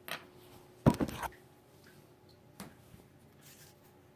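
Handling noise: a few light knocks and rustles, the loudest about a second in, over a faint steady hum.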